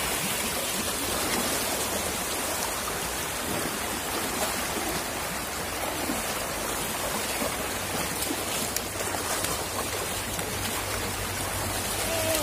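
Shallow river water running steadily over stones, with splashing as a person wades through it and sweeps a scoop net.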